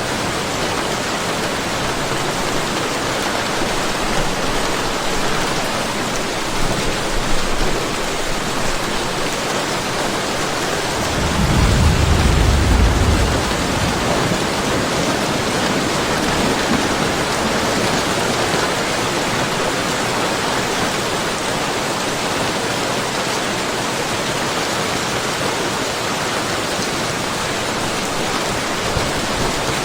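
Steady rain falling, with one low rumble of thunder lasting about two seconds partway through.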